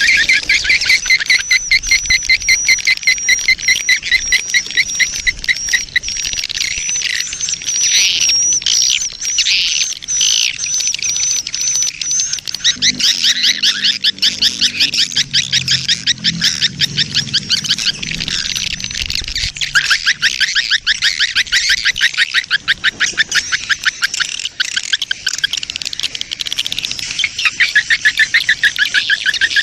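Recorded colony and mating calls of edible-nest swiftlets, played as a lure. Rapid trains of high, chirping twitters repeat throughout, with a thin high whistle held over the first half.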